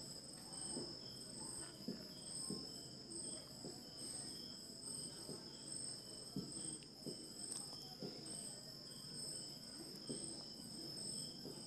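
Faint high-pitched insect chirping over quiet room tone: a steady trill with a second call pulsing about one and a half times a second, and a few soft taps.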